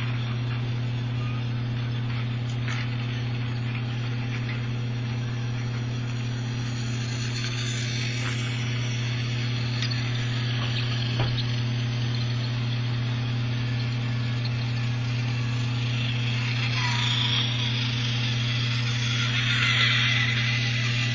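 Battery-powered Tomy toy train running on blue plastic track, its small motor and gears whirring steadily and getting louder near the end, under a steady low hum.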